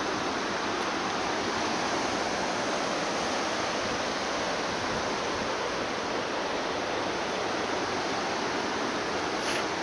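Steady rush of a fast mountain river's whitewater rapids pouring over rocks.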